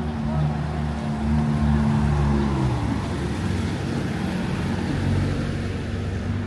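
Motor vehicle engine running close by in street traffic, a steady low hum that gives way about three seconds in to general traffic noise.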